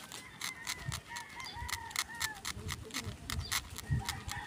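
Fast, fine clicking and scratching of a steel needle being worked into a fresh eggshell, with chickens calling in the background during the first half and again near the end.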